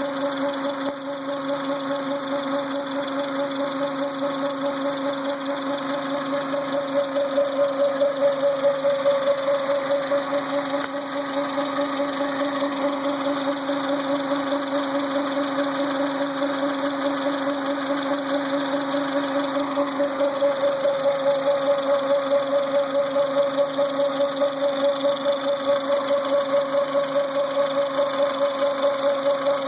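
Renault Symbol's hydraulic power steering pump humming with the engine idling: a steady drone with a fast, even pulse. The hum is the complaint being recorded.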